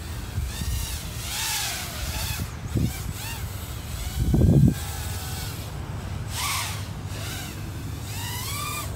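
Quadcopter drone flying, its motor and propeller whine rising and falling in pitch as the throttle changes, over a low wind rumble on the microphone, with one brief louder rumble about halfway through.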